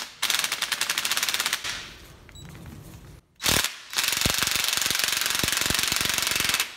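Cordless impact driver hammering as it runs down the bolt of a homemade valve spring compressor on a GM LQ4 cylinder head, compressing the valve spring so the keepers can come free. A sharp knock at the start, a burst of rapid hammering for about a second and a half, a short burst near the middle, then a steady run of about three seconds.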